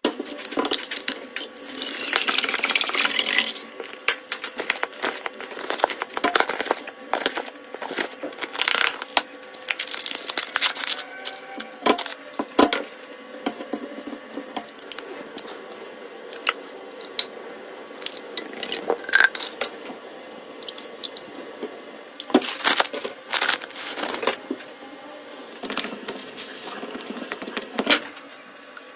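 Kitchen preparation sounds: liquid pouring or running water in several bursts, with irregular clinks and knocks of utensils and containers.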